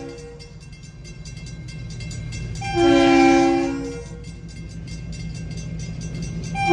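Diesel locomotive's multi-chime air horn blowing for the grade crossing as the train approaches. One chord ends just after the start, a second blast of over a second comes about three seconds in, and a third starts at the very end. Between the blasts the locomotive's engine rumble grows louder.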